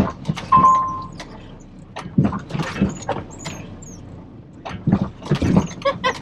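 Loaded dump truck being rocked to get out of a sand pit: the engine runs low under a series of clunks and knocks, with a short beep about half a second in.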